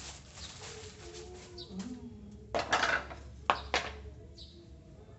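Plastic parcel packaging crinkling loudly for about half a second midway through, followed by two sharp knocks, over small birds chirping in the background.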